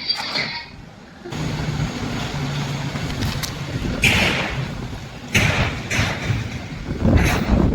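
Homemade electric four-wheel-drive off-road vehicle on the move: a low steady hum with running noise sets in suddenly about a second in, and loud rushes of noise come three times, around the middle and near the end.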